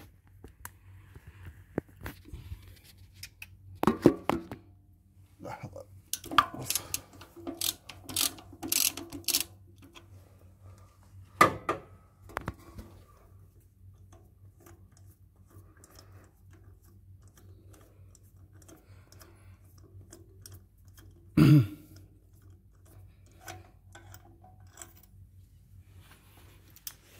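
Metal hand tools clicking and clattering as a socket wrench on a long extension loosens a spark plug from its well in a four-cylinder engine, with scattered sharp clicks and a few louder clatters about 4, 7 to 9, 11 and 21 seconds in.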